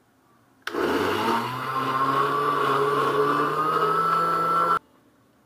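Small electric blender running for about four seconds as it purees cooked rice, ground beef and vegetables with broth. The motor starts under a second in, its pitch rises slightly as it runs, and it cuts off suddenly.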